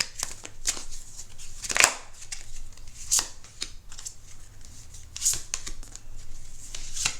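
Tarot cards being shuffled and drawn: a string of irregular sharp card flicks and slaps, the loudest about two seconds in.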